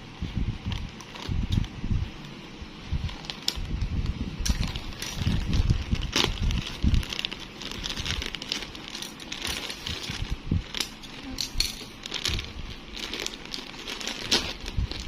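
Parcel packaging being handled and opened by hand: irregular crinkling and rustling with scattered clicks and low knocks.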